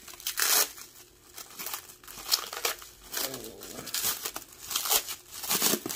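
Clear plastic wrap and bubble wrap around a stack of trading cards crinkling in irregular bursts as hands pull and tear it open.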